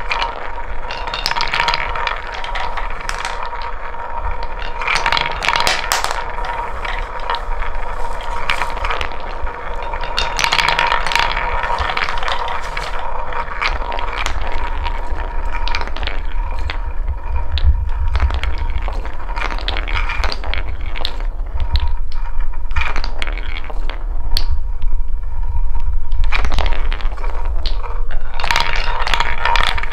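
Wooden balls rolling round and round a wooden bowl of a wooden marble run: a continuous rolling rumble with many clicks as the balls knock into one another and the bowl.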